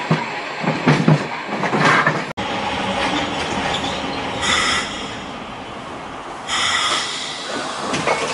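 Tram running on its rails, heard from inside the car. The audio breaks off abruptly about two seconds in, then two high wheel squeals follow about two seconds apart, the second one longer.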